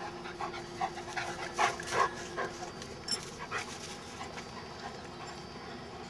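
Dogs playing, with a quick run of short panting, huffing sounds in the first half, loudest about two seconds in, then fading.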